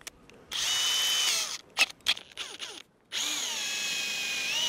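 18-volt cordless drill drilling out the stainless steel bolts of a mast deck ring: a high motor whine in a run of about a second, then a few short bursts, then a steady run from about three seconds in, its pitch sagging slightly as the bit bites and rising again near the end.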